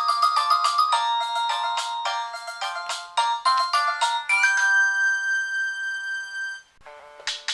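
Nokia 3220 polyphonic ringtone played on a Nokia N73: a quick run of bright electronic notes that ends about two-thirds through on a long held chord. After a brief pause, the next ringtone starts near the end.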